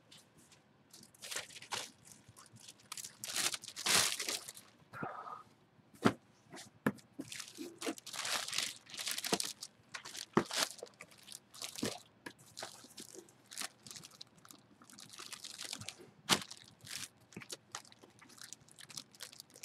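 Clear plastic bag crinkling and rustling in irregular crackles as a folded hockey jersey is pushed into it and handled.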